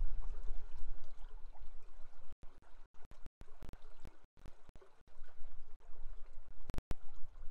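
River water flowing, with a low rumble underneath. From about two seconds in, the sound cuts out briefly several times, with sharp clicks between the gaps.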